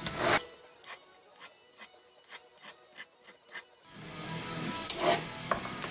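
A small hand file rasping across the metal end of a car's heater control cable, in quick short strokes about four or five a second, roughing the surface so adhesive will grip.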